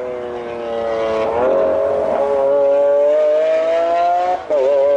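A supercar's engine pulling under acceleration, its pitch climbing steadily for about three seconds, then dipping for a moment near the end before holding high again.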